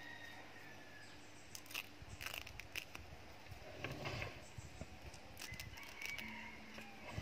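Dry coconut leaf sheath being peeled by hand from a young coconut palm's stem: faint crackling and rustling with scattered small clicks, busiest in the middle.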